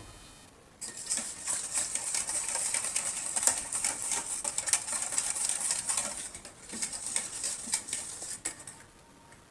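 A whisk beating sour yogurt and oil together in a bowl, giving fast, irregular clicking and pattering. It starts about a second in and dies away over the last few seconds.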